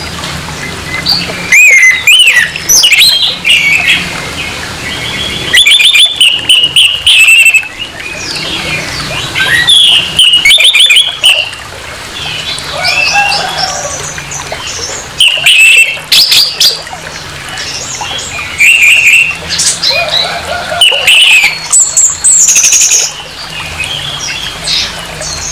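Orange-headed thrush singing a loud, rough song in bursts every few seconds: varied whistled phrases, several broken by rapid rattling trills.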